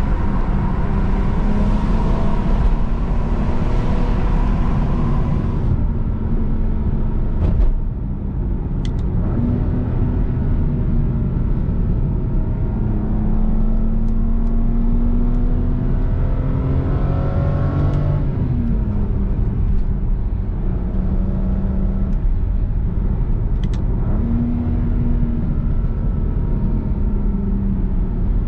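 Turbocharged 3.0-litre straight-six of a BMW 335i E93 with a straight-piped exhaust, driven hard: the engine pitch rises under acceleration and drops at shifts and lift-offs several times. A sharp exhaust crack comes about seven and a half seconds in, with a few smaller pops later.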